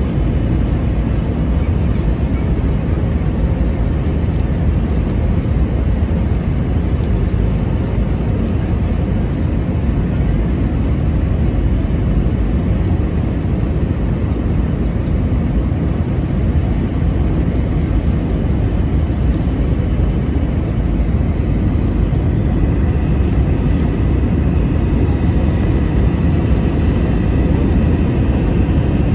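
Steady loud rumble of jet airliner cabin noise, deep and even throughout, with a faint thin whine coming in about three quarters of the way through.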